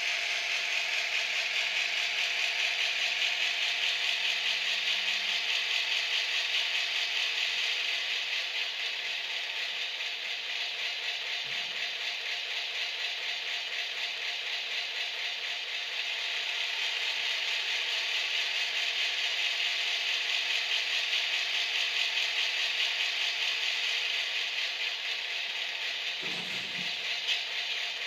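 Diesel-locomotive engine sound from an ESU LokSound V4.0 sound decoder, played through the small speaker of an H0 model of the SBB Bm 6/6, running steadily with a tinny rattle. A brief low thud comes near the end.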